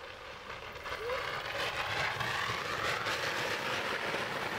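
Inflatable inner tube sliding down a mosaic-surfaced slide: a steady rushing hiss of friction that builds about a second in and holds.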